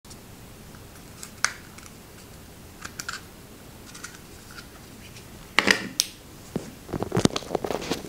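Small plastic clicks and taps from handling a Sony LinkBuds (WF-L900) charging case and earbuds: the lid clicking open and the buds being pulled out and handled. A louder clatter comes about five and a half seconds in, and the handling grows busier near the end.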